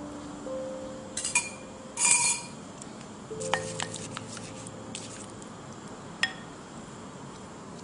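A pastry brush clinking and scraping against the side of a bowl as it stirs a glaze. There are a few sharp clinks, the loudest about two seconds in, a cluster around three and a half seconds, and one more near six seconds.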